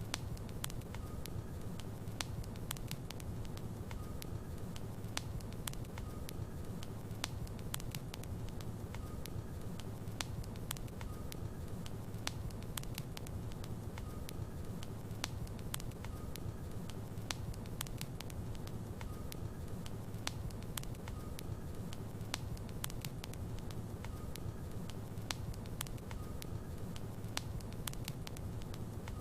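Wood logs burning in a fireplace: a steady low rumble of the flames with frequent sharp crackles and pops scattered throughout.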